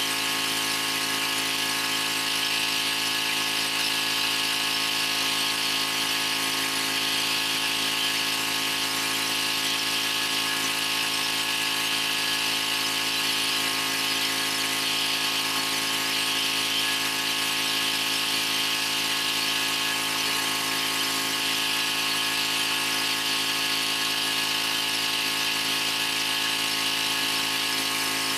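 Pressure washer running steadily, its rotary surface cleaner spraying water onto patio pavers, with a constant motor whine.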